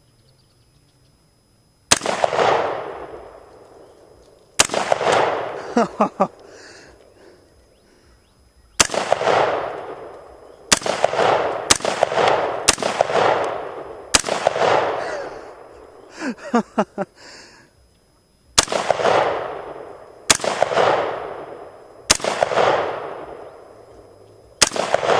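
AR-15 rifle fired as single shots, about eleven in all at uneven intervals, beginning about two seconds in. Each crack rings out in an echo that fades over a second or more.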